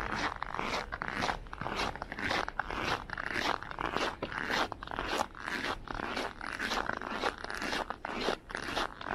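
Footsteps crunching on packed, very cold snow at a steady walking pace.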